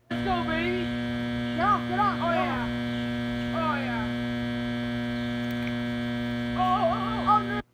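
Loud steady electrical hum with many evenly spaced overtones, which the uploader blames on a broken generator; it cuts off suddenly near the end. A few short pitched sounds rise and fall over it, the loudest about two seconds in and again near the end.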